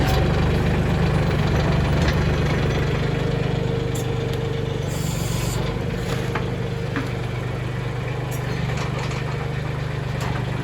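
Mahindra 1626 sub-compact tractor's diesel engine idling steadily, easing slightly in level about three seconds in. A brief hiss comes about five seconds in, and there are a few light clicks.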